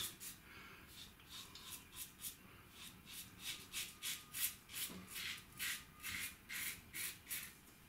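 Gillette Adjustable double-edge safety razor with a Gillette Nacet blade, set to 7, scraping through lathered stubble in short repeated strokes, about three a second.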